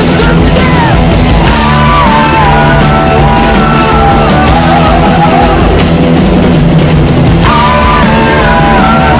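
Loud rock music with a singing voice over a dense band backing.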